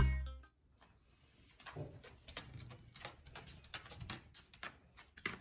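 Background guitar music fades out in the first half second, then faint scattered rustles and light taps as a corgi puppy is rubbed by hand on a hardwood floor.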